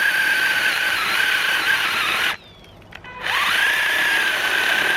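Worx 20 V cordless mini chainsaw running with a steady high-pitched whine of motor and chain. It cuts off about two seconds in, then spins back up a second later, its whine rising to full speed.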